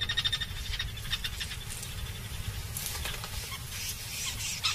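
A rapid run of clicks forming an animal's chattering call, lasting about a second and a half, followed by faint outdoor ambience.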